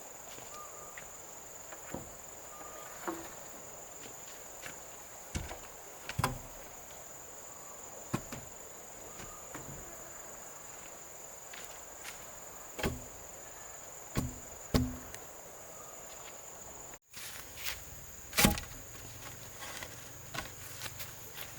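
Insects, crickets by the sound, chirping in a steady high drone, with irregular knocks and thuds of work scattered through, the loudest sharp knock about three quarters of the way in. The sound drops out briefly just before it.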